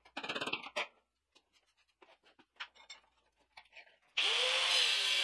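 A brief clatter of metal handling, then about four seconds in an angle grinder's cut-off wheel bites into a laminated steel knife billet: a loud, steady grinding hiss over a motor tone that wavers as the wheel is loaded.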